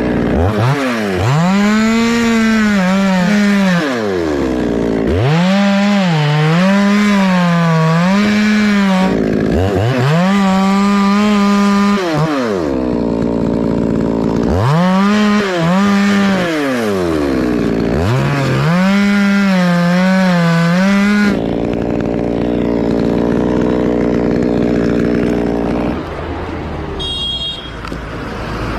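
Chainsaw cutting into jackfruit wood: the engine is revved up five times in a row, each time holding high with small dips in pitch as the chain bites, then falling back. After that it idles steadily, then drops lower near the end.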